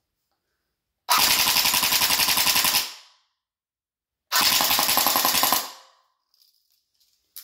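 Snow Wolf PPSh-41 electric-blowback airsoft gun firing two full-auto bursts: a rapid, even rattle of the gearbox cycling with the blowback working the charging handle back and forth. The first burst starts about a second in and lasts nearly two seconds; the second, shorter one starts about four seconds in.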